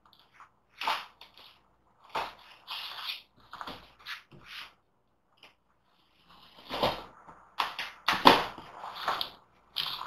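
A cardboard shipping box being opened by hand: a tool drawn along the taped lid seam and the cardboard scraping and crackling in irregular bursts, loudest about seven to nine seconds in.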